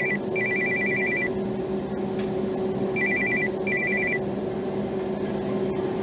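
Samsung Galaxy S23 Ultra ringtone: a fast two-note electronic trill like an old telephone bell, in short bursts with brief gaps, stopping about four seconds in. A steady low hum and hiss runs underneath.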